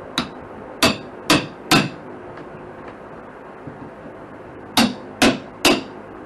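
Hammer blows on a steel pry bar being driven in behind wall paneling at the floor: a light tap, then three quick ringing blows, a pause of about three seconds, and three more.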